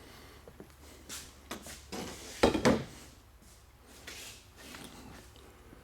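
Short rubbing and knocking sounds of loose car door hardware being handled and moved about, loudest in a brief cluster about two and a half seconds in.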